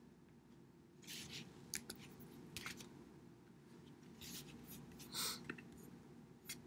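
Faint taps and short scrapes of a stylus on a tablet screen as a word is handwritten.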